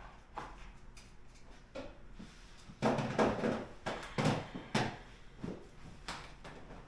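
Irregular knocks and clatter of objects being handled, loudest in a burst of several knocks about halfway through.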